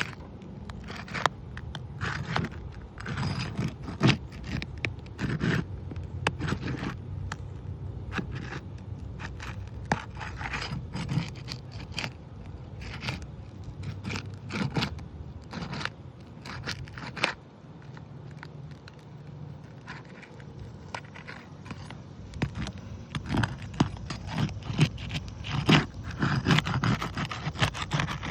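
Asphalt shingles being pried up off a roof, their sealed tabs tearing loose with repeated irregular scrapes and sharp cracks.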